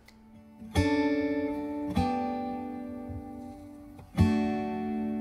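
Outro music on acoustic guitar: three chords, each struck and left to ring out. The first comes a little under a second in, the second at about two seconds and the last just past four.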